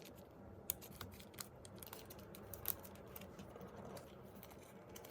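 Scattered light clicks and taps from plastic photocard sleeves and cards being handled and slid into place.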